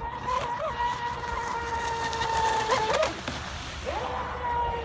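Pro Boat Voracity 36 RC boat's brushless electric motor whining steadily at speed on a 6S battery. Its pitch jumps and dips briefly around three seconds in and again about four seconds in, with a short rush of noise about three seconds in.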